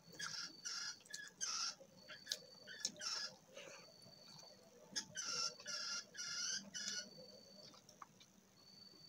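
Chicken clucking in short calls: a run of three in the first two seconds and another run of about four around five to seven seconds in.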